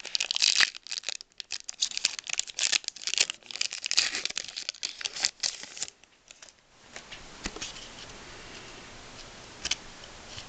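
A foil trading card pack being torn open and crinkled, a dense crackling for about six seconds. After that it goes quieter, with a couple of single clicks as the cards are handled.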